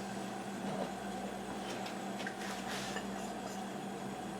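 A steady low mechanical hum with a couple of fixed tones, and a few faint light clicks about halfway through.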